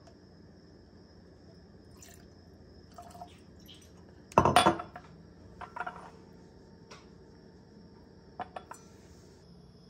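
Barrel-aged vodka poured from a bottle into a glass tumbler, loudest in a short splash about four and a half seconds in. A few light clinks of glass on a stone countertop follow.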